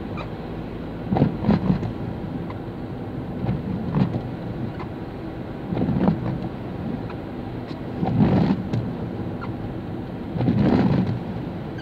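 Car cabin noise while driving on a wet road: steady tyre and engine noise, with a louder swell every couple of seconds as the windscreen wipers sweep the glass.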